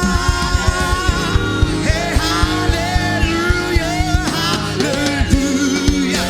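Live gospel worship music: a voice singing a melody over a band with a steady drum beat and sustained chords.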